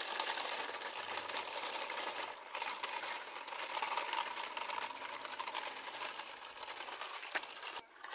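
Small electric motor and plastic gears of a battery-powered toy truck or excavator whirring steadily with a high whine and gear rattle, cutting off suddenly near the end.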